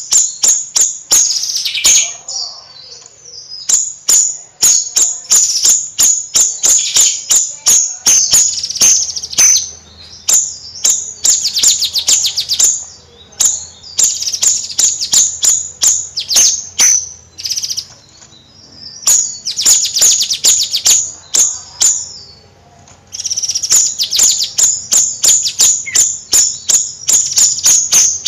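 Bayeman songbird singing a loud, fast chattering song: rapid runs of sharp, high clicking notes, broken by brief pauses.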